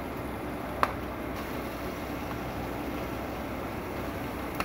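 Vegetables frying in a stainless steel wok with a steady rushing noise, and one sharp tap of a wooden spatula against the wok about a second in.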